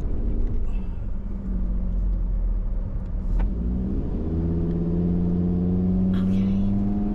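Hummer engine running loud through a busted muffler, the exhaust possibly torn off entirely. The pitch dips about three and a half seconds in, then rises steadily as the vehicle accelerates.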